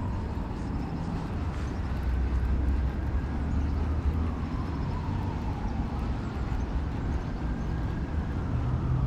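A distant engine running: a steady low rumble with a faint whine that slowly falls and then rises again.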